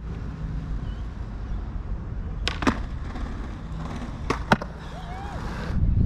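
Skateboard wheels rolling on concrete with a steady low rumble, broken by two pairs of sharp wooden clacks, about two and a half seconds in and again about four and a half seconds in, as the board pops onto a low concrete ledge, grinds it and lands back on the ground.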